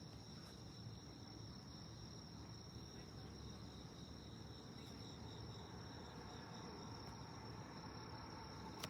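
Insects chirring steadily in a continuous high trill over a faint low background rumble, with a single sharp click just before the end.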